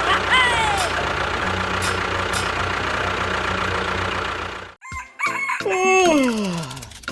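A rooster crow ending within the first second, over a steady engine-like hum that cuts off suddenly about four and a half seconds in. Near the end, a pitched sound with overtones slides steeply downward.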